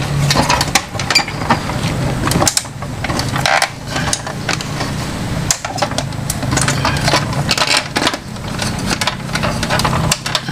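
Irregular plastic clicks and knocks from the inner parts of an Epson L3210 printer as a stuck white plastic shaft is worked by hand back into its mounting holes. Under them is a low engine hum from road traffic, which drops away for a few seconds in the middle.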